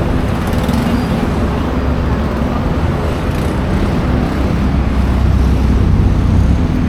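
Busy street traffic, a steady rumble of passing vehicles that swells a little louder near the end.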